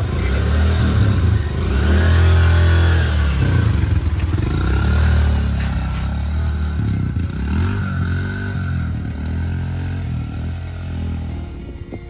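Dirt bike engine running and revving up and down several times as it pulls away, the engine note fading near the end as the bike moves off.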